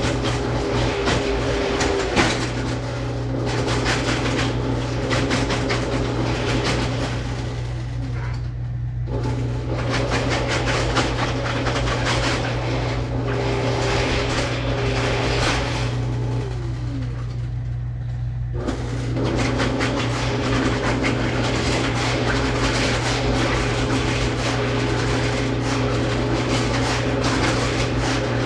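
Electric drain-cleaning machine running steadily, its motor note dipping briefly a couple of times as the cable takes load.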